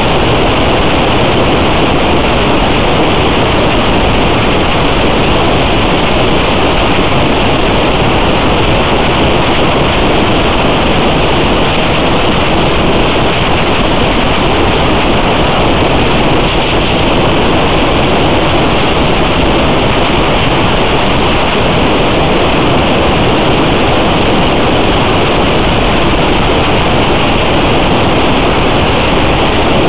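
Loud, steady hiss with no tone or rhythm in it.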